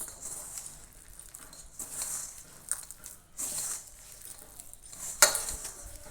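A hand working a wet flour-and-egg batter in a bowl as water is added a little at a time: several short, wet squelching strokes, with one sharp knock against the bowl about five seconds in.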